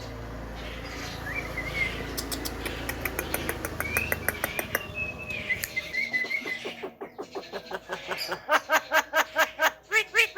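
Javan myna calling: short whistled chirps over a fast run of clicks. Near the end come loud, harsh repeated notes at about three a second.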